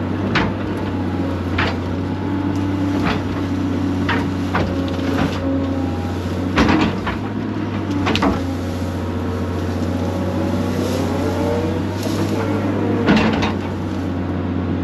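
Excavator's diesel engine and hydraulics running steadily, with a series of sharp knocks and clanks as the bucket works the ground. A tone swells and falls once about ten to twelve seconds in, as the machine comes under load.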